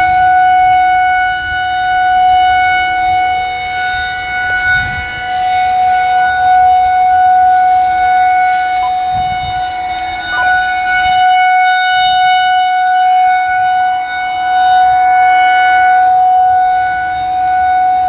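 Federal Signal 2001-SRNB rotating electromechanical siren sounding a steady full-alert tone. The pitch holds level while the sound swells and fades several times as the horn turns toward and away.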